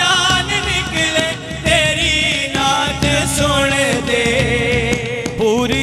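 Devotional Punjabi naat singing: a voice draws out long, wavering, ornamented notes without clear words between the lines of the refrain.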